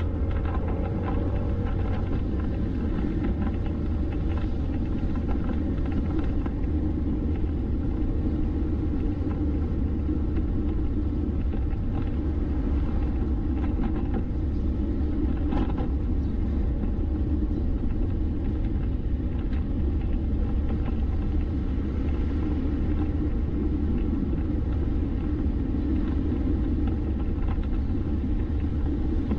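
Steady low rumble of a vehicle driving along a road: engine and tyre noise heard from the moving vehicle.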